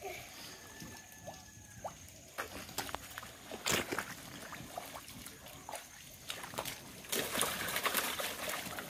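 Wet mud and shallow water squelching and sloshing as feet and hands work through a muddy tidal pool. There is one sharp slap a little under halfway through, and louder splashing from about three-quarters of the way in.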